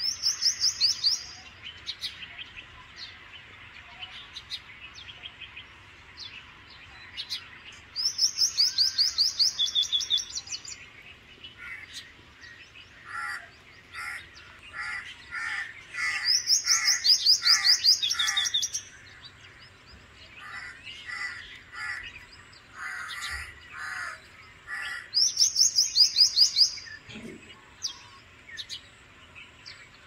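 Bank myna calling: four loud bursts of rapid, high, pulsed notes, each one to three seconds long, with a run of shorter, lower notes in between.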